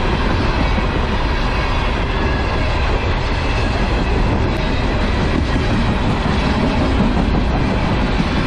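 Herzog ballast hopper cars rolling past on the rails, a steady rumble and rattle of steel wheels and car bodies going by.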